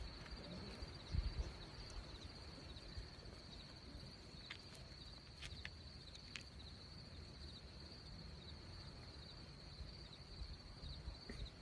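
Insects chirring steadily outdoors, a high, fast-pulsing drone, over faint low rumbling and a few soft clicks.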